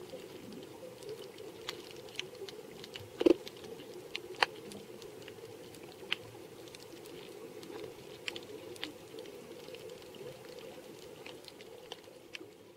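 Underwater reef ambience: a steady low hum with scattered sharp clicks and crackles, the loudest click about three seconds in and another about a second later.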